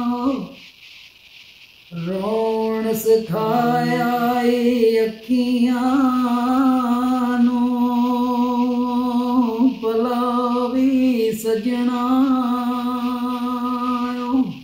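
A man singing a Gojri mahiya folk song with no accompaniment, in long held notes that waver in pitch. There is a break of about a second and a half near the start.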